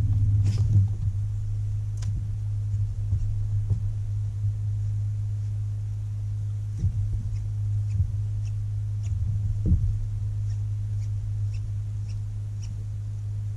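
Steady low hum of a bass boat's bow-mounted electric trolling motor, with a few soft knocks and faint high ticks about twice a second in the second half.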